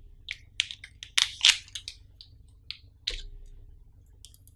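Hands handling a small plastic charger and its coiled black power cable: a quick run of small clicks and crinkles, a dull knock about three seconds in as a piece is set on the table, then a few light ticks near the end.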